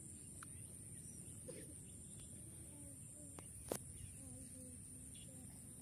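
Quiet outdoor riverside ambience: a steady high-pitched hiss over a low rumble, with faint distant voices and one sharp click about two thirds of the way through.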